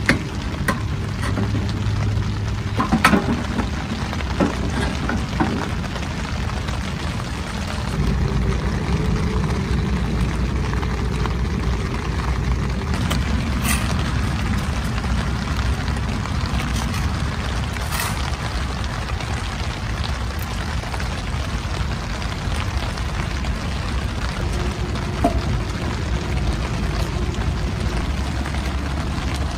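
Split firewood knocking against a small wood stove as it is pushed in, a few knocks in the first seconds, over a steady low rumble. Later a paper milk carton is opened with a soft click.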